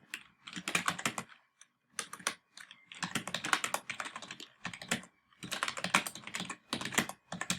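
Computer keyboard typing in quick runs of keystrokes, broken by short pauses about a second and a half in, near three seconds in, and past the five-second mark.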